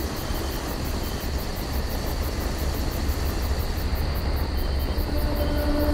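Motorcycle riding along: a steady rush of engine and wind noise with rapid, even insect chirping high above, about four pulses a second. A low steady hum comes in near the end.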